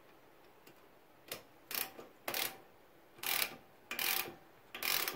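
Hand ratchet wrench clicking in short bursts, about six of them starting a second in, as it is swung back and forth. It is drawing the nut down the long bolt of a homemade press, easing the compliance bushing into the control arm.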